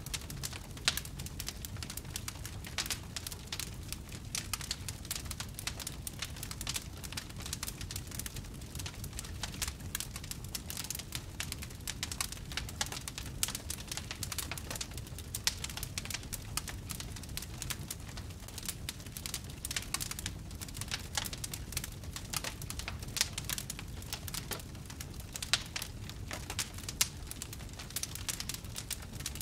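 Wood fire crackling and popping in a fireplace: dense, irregular sharp crackles over a low steady rumble of the flames.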